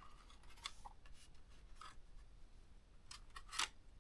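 Plastic top cover of a ThinkPad T430 laptop being pried and lifted off its clips: faint scraping and small plastic clicks, with a louder run of clicks near the end.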